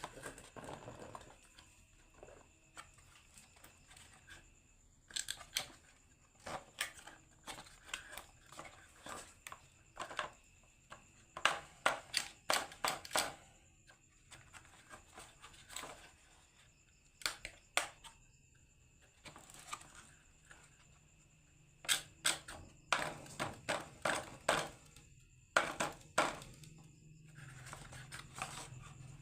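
Marbles clattering down a wooden HABA marble run: irregular sharp clicks and knocks, often in quick clusters, with a faint steady high tone underneath.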